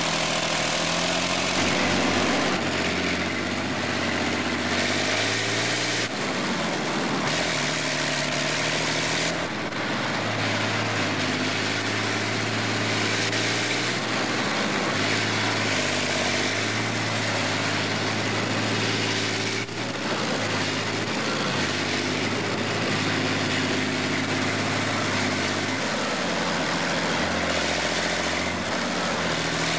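Diesel engine of an armoured military vehicle running under way, heard from on its deck, over a steady noise of running gear and rushing air. The engine note shifts up and down several times, about three, six, nine and twenty seconds in.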